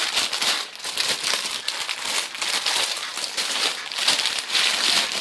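Packaging being handled and crumpled, a continuous crinkling and crackling as items are pulled out of the package.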